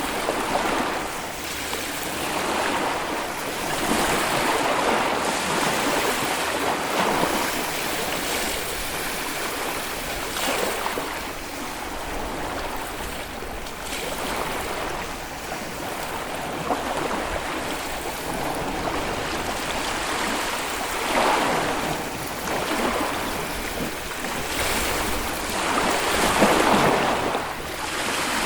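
Small Baltic Sea waves washing onto a sandy beach, a continuous rush of surf that swells as each wave breaks every few seconds, the loudest near the end.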